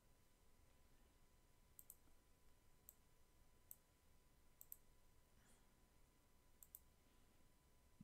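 Faint computer mouse button clicks, seven or so, some in quick pairs, against near silence.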